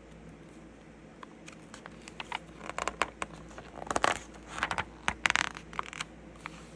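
Paper page of a softcover book being turned and pressed flat by hand: a series of rustles and crinkles, loudest about four and five seconds in.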